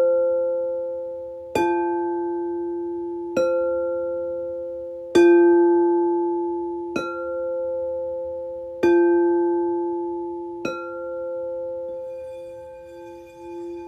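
Singing bowls struck slowly and evenly, about once every two seconds, six strikes in all. Each strike rings on in several overlapping tones that fade. Near the end the strikes stop and a wavering, pulsing tone sounds on.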